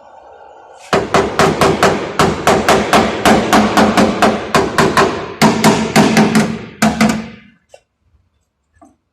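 Hammer blows on the car's sheet-metal body panel during dent repair, about four strikes a second for some six seconds, each with a metallic ring, then stopping.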